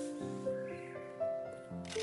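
Background music: a melody of held notes moving from one pitch to the next, with a short burst of hissing noise near the end.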